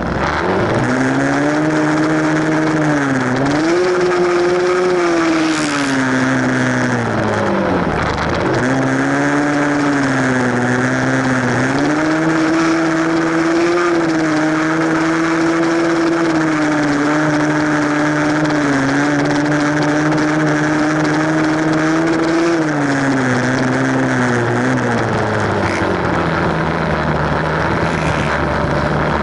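Small four-stroke single-cylinder dirt bike engine under way on a trail ride, its revs rising and falling with the throttle. The revs drop sharply about three and eight seconds in, hold fairly steady for a long stretch, then ease off near the end.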